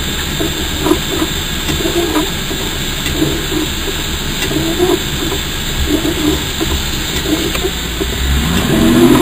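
Steady rushing noise picked up by a radio-controlled off-road car's onboard camera, with a rising motor whine near the end as the car is given throttle.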